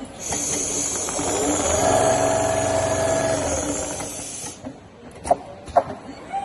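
CNC leather sewing machine stitching. Its drive speeds up, holds a steady whining pitch, then slows back down, over a high hiss that cuts off abruptly. A few sharp clicks follow near the end.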